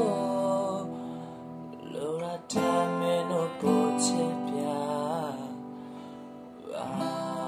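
Acoustic guitar strummed, its chords ringing on between strums, with a man's voice singing long, sliding notes over it.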